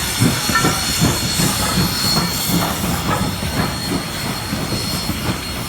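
Steam-hauled passenger train of Norfolk and Western locomotive 475 rolling past close by: a quick regular clatter, about three beats a second, over a steady hiss.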